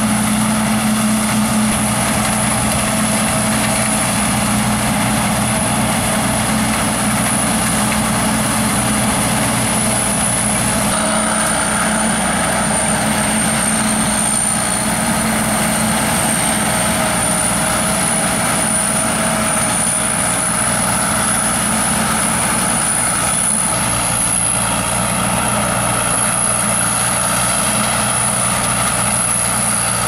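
Sakpattana KM AMT corn combine harvester running steadily while harvesting corn: a continuous engine and threshing drone with a thin high whine. The sound shifts abruptly twice, about 11 and 24 seconds in.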